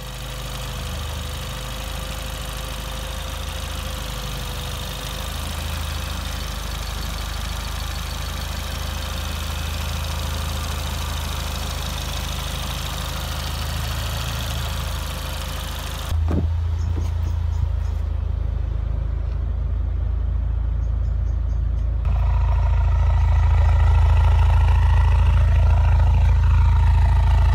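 Rebuilt 2.0-litre four-cylinder turbo engine in a Mk3 Ford Focus idling. It is heard first close up under the bonnet with a thin steady whine, then from about two thirds in at the exhaust tailpipe, deeper and louder.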